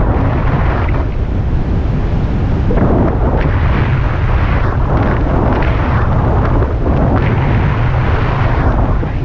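Wind buffeting the microphone during a paraglider flight: a loud, constant low rumble with irregular gusts that swell and fade.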